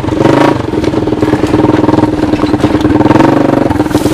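1986 Honda TRX200SX ATV's single-cylinder four-stroke engine, fitted with a makeshift muffler, running steadily under load as it drives a converted golf-cart UTV.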